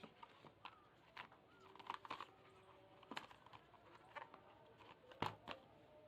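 Faint, scattered clicks and taps, about seven in six seconds, the loudest a little after five seconds in: hands handling a Realme C55 phone and its packaging during unboxing.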